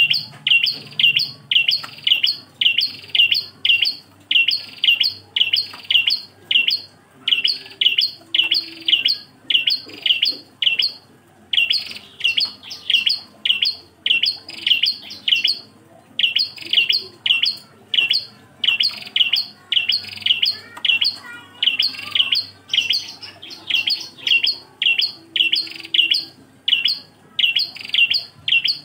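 A single prenjak klawu singing a fast, steady run of sharp, high chirps, about two to three a second, broken only by a few short pauses.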